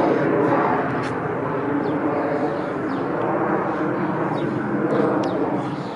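Steady engine noise, fading away near the end.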